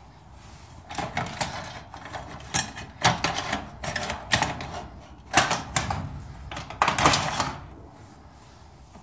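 Rapid metallic clicking and rattling in about five short bursts, from hand-tool work on a steel garage door's bottom bracket.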